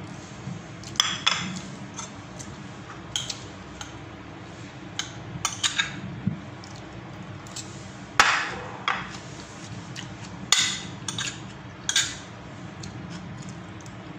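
Metal spoon clinking and scraping against ceramic plates and a bowl while eating, in irregular sharp clinks, the loudest a little past halfway.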